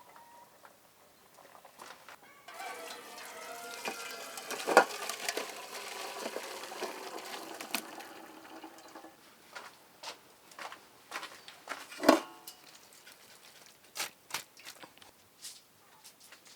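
Cooking noises: several seconds of hissing with steady tones running through it, then scattered clicks, with two sharp knocks about five and twelve seconds in.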